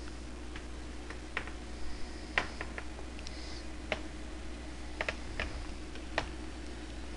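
Irregular light clicks and crackles from hands handling and smoothing thin wing-covering material on a hard board, over a steady low hum.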